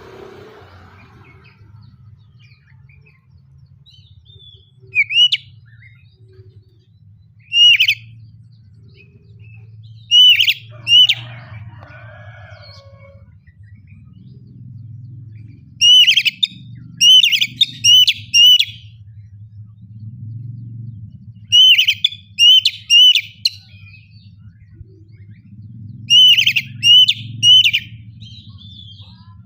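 Oriental magpie-robin (kacer) singing: loud, sharp upward-swept whistled notes, single and spaced at first, then in quick runs of three to five notes, over a steady low hum.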